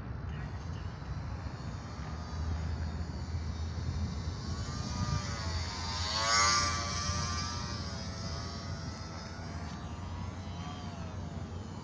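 Electric motor and propeller of an E-flite J-3 Cub radio-controlled model plane whining in flight. It grows loudest as the plane makes a low pass overhead about six seconds in, its pitch sliding as it goes by.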